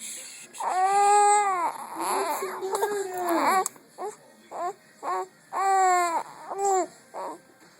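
A three-month-old baby crying in a string of wails: a couple of long, drawn-out cries, then shorter broken ones and another long cry, trailing off near the end.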